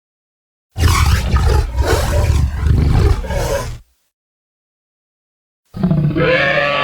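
Stock dinosaur roar sound effects: a deep roar about three seconds long starting just under a second in, then a gap of silence. Near the end a second, higher-pitched call begins.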